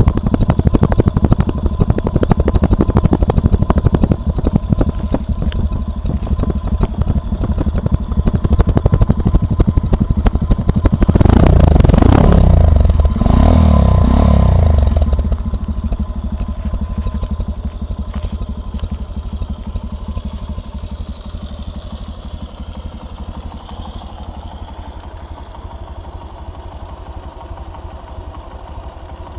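Sachs MadAss 125's single-cylinder four-stroke engine idling through its twin-outlet exhaust, revved twice about 11 to 15 seconds in with the pitch rising and falling each time, then back to idle and growing fainter toward the end.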